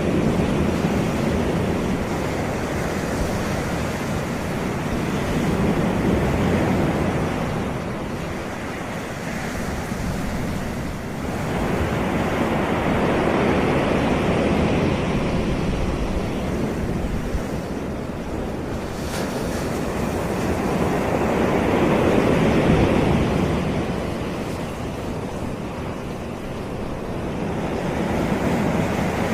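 Sea waves breaking and washing up onto a beach, a continuous surf that swells and eases in slow surges every six to eight seconds.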